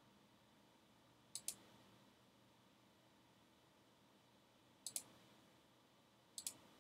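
Computer mouse button clicked three times against near silence, each click a quick double tick of press and release.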